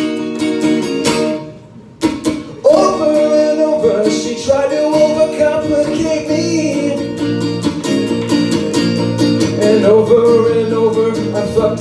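Acoustic guitar strummed with a man singing, live. About a second and a half in the playing drops away almost to nothing for a moment, then the strumming comes back in strongly with the voice over it.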